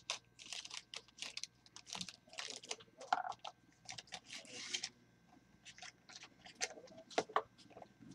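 Plastic card-pack wrapper crinkling and rustling in the hands, with light clicks and taps of cards and the cardboard mini box being handled. The crinkling is busy for about the first five seconds, then gives way to a few scattered clicks.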